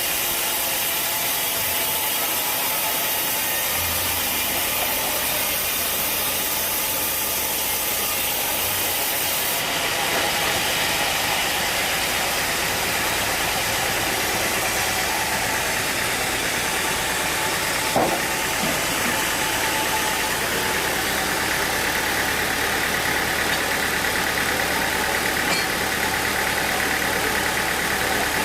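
Engine-driven sawmill machinery running steadily. Its tone shifts about a third of the way in, and there is a single sharp knock about two-thirds through.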